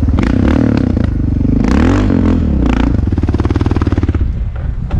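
An off-road vehicle's engine runs and revs up and down as it drives over a rough sandy trail, with clattering knocks from the bumps. The engine eases off a little before the end.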